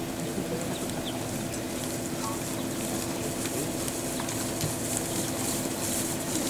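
A group of Civil War infantry reenactors walking through grass, their footsteps swishing and their muskets and equipment rattling, coming closer toward the end. Under it runs a low steady hum.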